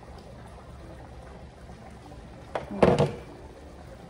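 Glass pot lid set down with a clatter: a click, then a quick run of knocks with a little ringing, about two and a half seconds in, over a low steady hum.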